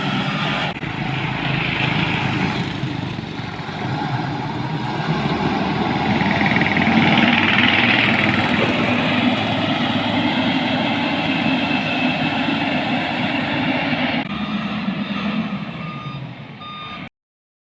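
Heavy construction vehicle's engine running with a reversing alarm beeping. The sound breaks off suddenly near the end.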